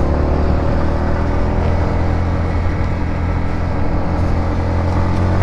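Yamaha MT-15's single-cylinder engine running at a steady, unchanging pitch.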